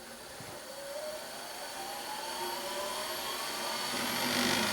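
Boxford lathe's original DC spindle motor, driven by a DC motor controller, spinning up with a rising whine that grows steadily louder as it gathers speed, unloaded.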